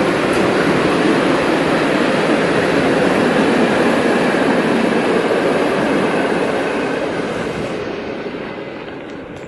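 Freight train of open-top wagons rolling past on the rails, a steady rumble of wheels on track that fades over the last few seconds as the end of the train goes by.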